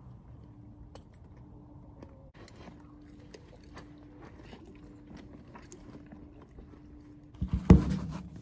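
Faint clinks and rustles of a Western saddle's tack being handled on a horse, over a faint steady hum. Near the end, a loud burst of noise right at the microphone, lasting under a second.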